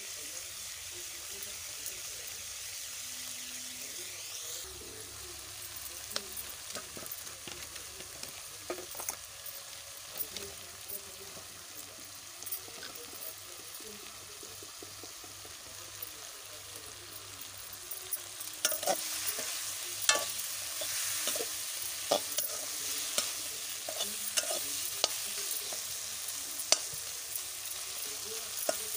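Tomatoes frying in spiced masala in a metal kadhai, sizzling steadily while a steel slotted spoon stirs and scrapes against the pan. The scraping strokes get louder and come more often about two-thirds of the way in.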